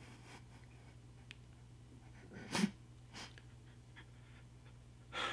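A man crying, with short, sharp, sniffling breaths: the loudest about halfway through, a fainter one just after it, and another near the end, over a low steady room hum.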